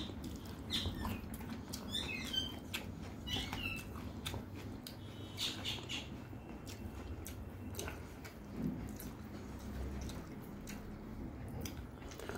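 Close-up mouth sounds of eating: chewing with a wet lip smack about every second, over the soft squish of fingers working rice and curry on the plate.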